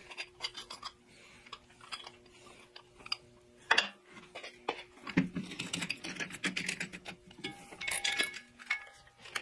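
Small metal clicks and clinks of a Milwaukee hole saw and its arbor being handled and fitted together, with a plastic kit case being rummaged. One sharper click comes a little before the middle, and the clatter gets busier in the second half.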